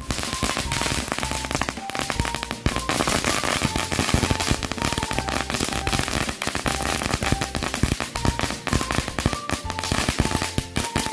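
A pile of ground-spinner firecrackers and small chili firecrackers going off together: a dense, unbroken rattle of cracks and pops.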